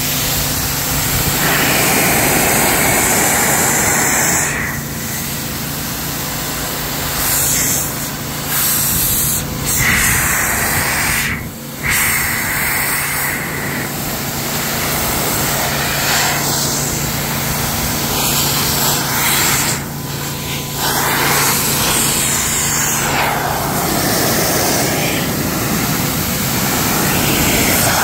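Air blower running, blasting air over a wet car's paint and glass to dry it. The rush of air rises and falls several times as the nozzle moves over the body, over a steady motor hum.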